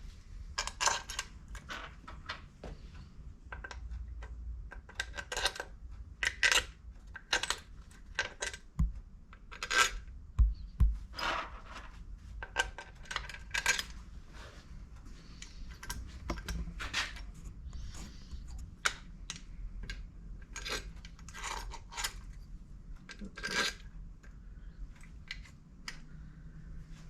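Metal engine parts and tools clinking and clanking on a workbench during hand assembly of a two-stroke motorcycle engine, in many irregular sharp knocks with a short metallic ring.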